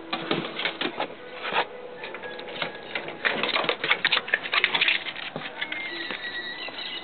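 Rapid clicking and scrabbling of a small terrier's claws on a hard tile floor, with the metal-framed screen door rattling as it is pushed open around four seconds in. A thin high tone sounds faintly near the end.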